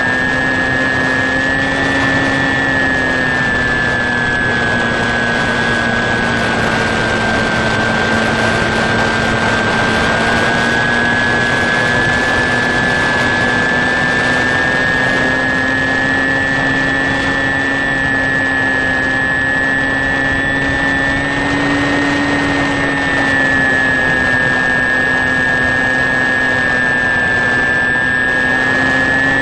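Electric motor and propeller of an HK Sky Eye FPV model plane running steadily at cruise throttle, heard from the onboard camera. A high whine and a lower propeller tone drift slightly up and down in pitch over a steady wind rush.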